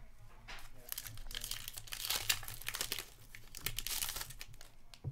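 Hands tearing open a foil hockey card pack and crinkling the wrapper. The crinkling comes in dense bursts, loudest about two seconds in and again near four seconds.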